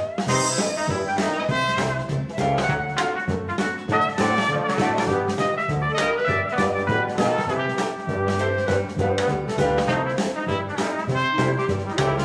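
Background music played by brass instruments over a steady beat.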